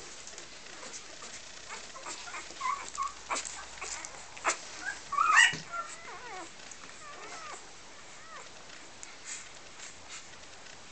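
Three-day-old puppies whimpering in short, high squeaks, loudest about five seconds in, as the litter nurses. A few soft knocks come in between.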